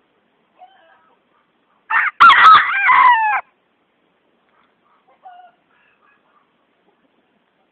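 Golden Sebright bantam rooster crowing once, a short crow of about a second and a half that ends on a falling note. Faint clucking comes before and after it.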